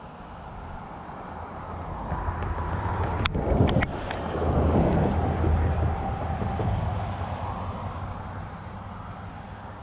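A vehicle passing by: a rumbling noise that swells over a few seconds and fades away, with a few sharp clicks near its loudest point.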